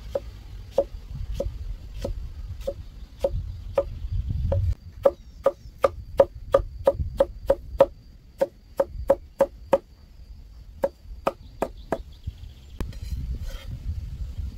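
Rhythmic chopping strokes against wood, evenly spaced at first and then quickening to about three a second in the middle before slowing and stopping.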